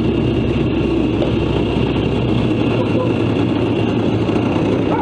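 Late-1970s Yamaha Enticer 250 snowmobile's two-stroke engine idling steadily as it warms up.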